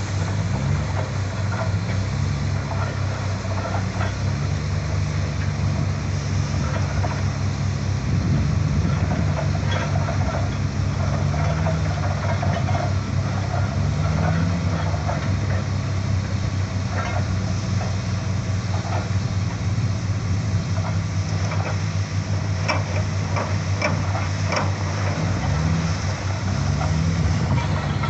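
Borewell drilling rig's engine running steadily under load, its note rising and falling slightly from time to time, with scattered metallic clanks over a steady hiss.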